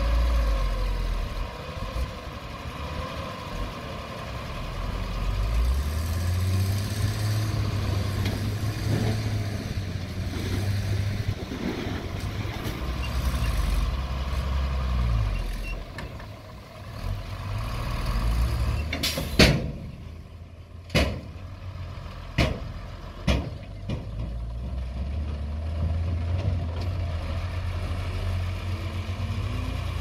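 Dump truck's diesel engine running, its note rising and falling, as the hydraulic tipper bed raises and the load of dirt slides out. A series of sharp bangs comes about two-thirds of the way through.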